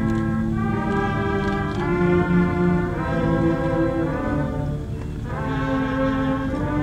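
Slow orchestral music with brass and strings, long held chords changing about once a second.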